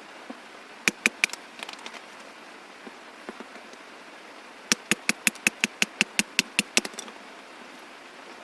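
Sharp knocks over a steady faint hiss: three about a second in, then a quick even run of about a dozen at roughly six a second.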